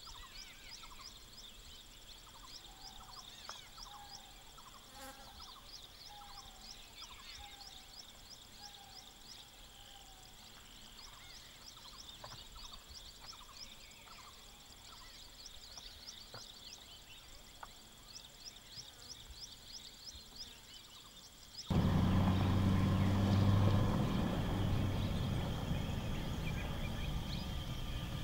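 Faint wild ambience of insects and birds chirping quickly and continuously, with a bird repeating a short falling call for several seconds a few seconds in. About three-quarters of the way through it cuts abruptly to a much louder, steady low hum.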